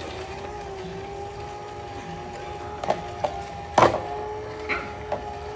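Small electric motor running with a steady, slightly wavering whine, with a few sharp knocks in the second half, the loudest just under four seconds in.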